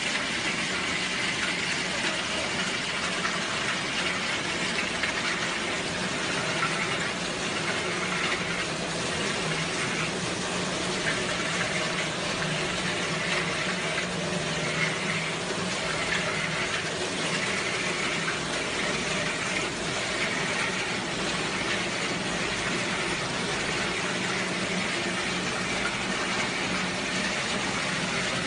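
Small screw-type concrete pump for secondary-structure column pouring running steadily: a constant hum under an even noise as wet concrete is fed into its hopper.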